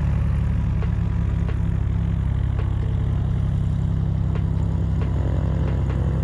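An engine running steadily at a constant pitch, a deep, even drone.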